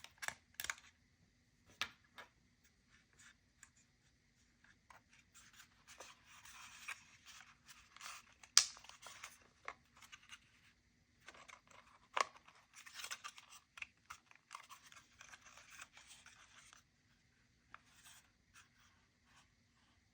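Packaging being handled and opened: rustling and scraping of the box and its wrapping, in two longer stretches, with scattered sharp clicks and taps between them.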